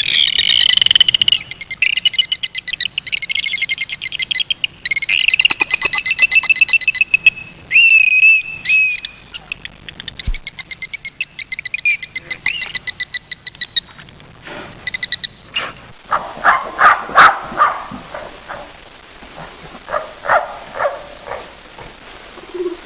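Animal calls. For the first nine seconds or so there is a high, rapid pulsed trill, repeated several times. From about sixteen seconds in a different series of lower, irregular clicking calls follows.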